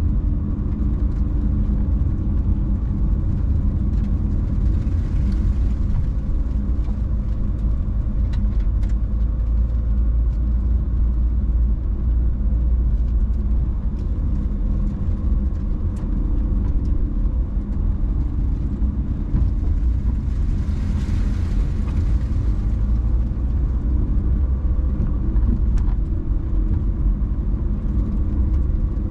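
A car driving along city streets: a steady low rumble of road and engine noise. A hiss swells briefly about five seconds in and more strongly about twenty seconds in.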